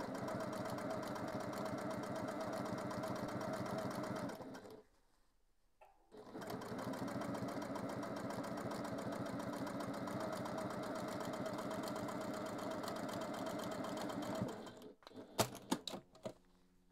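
Electric sewing machine stitching a straight quarter-inch seam at a steady speed. It pauses for about a second and a half about five seconds in, then runs again, stops near the end and is followed by a few sharp clicks.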